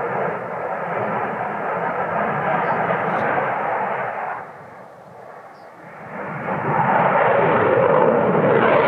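Saab JAS 39 Gripen fighter jet's engine noise during a high-g display turn. The steady jet noise falls away sharply about four seconds in, then builds back up and is louder near the end as the jet comes close.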